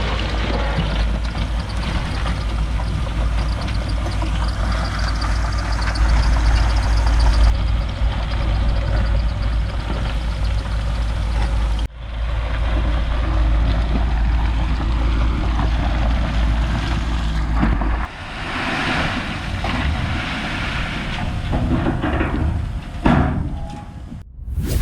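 Heavy earthmoving machinery running, a crawler bulldozer and a truck, in a string of short clips with abrupt cuts about 12 and 18 seconds in. A deep, steady engine drone carries the first 18 seconds.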